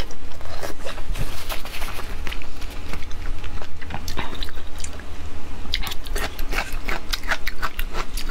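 Close-miked wet chewing of sauced pork intestines, with many sharp, sticky mouth clicks and smacks. The clicks come thickest in the last two seconds.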